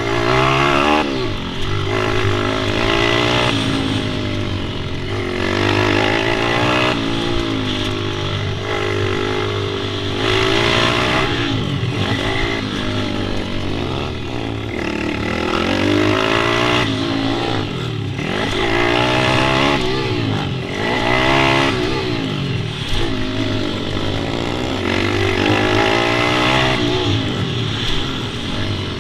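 Several pit bike engines revving up and dropping back again and again, their overlapping notes rising and falling in pitch over a steady low engine hum.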